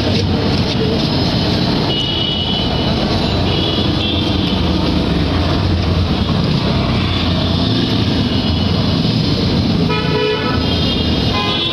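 Steady road traffic noise with vehicle horns tooting briefly, about two seconds in and again near the end.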